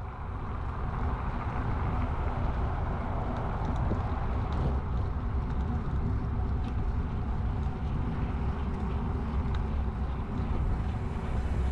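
Wind rumble on a bike-mounted action camera's microphone mixed with tyre and road noise from a bicycle rolling on asphalt. It is a steady low rumble that fades in over the first second.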